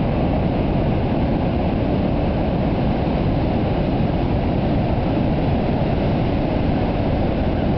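Steady, loud rumble of heavy ocean surf breaking along the beach, even throughout with no single wave standing out.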